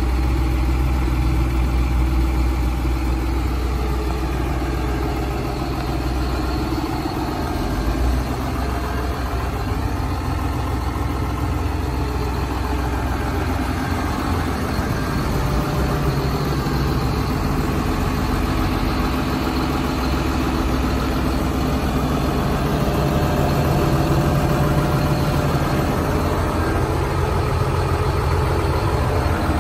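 John Deere 7530 Premium tractor's six-cylinder diesel engine idling steadily.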